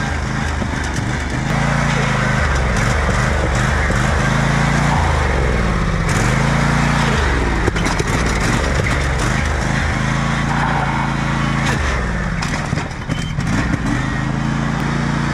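Lawnmower engine running hard, its pitch climbing and dropping several times as it is revved up and eased off, over a steady rushing noise.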